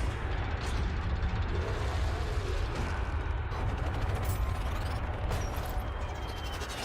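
Sound-designed fighter-jet roar: a deep, continuous rumble under a dense rushing noise, with scattered mechanical clicks and hits.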